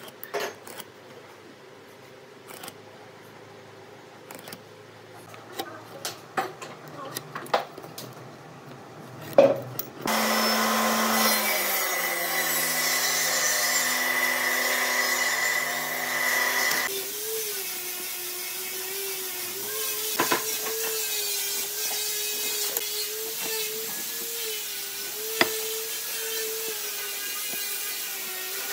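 Scattered light clicks and taps of a steel square and pencil on pine boards. About ten seconds in, a woodworking power machine starts running loudly with a high whine, then settles into a steady, slightly wavering hum.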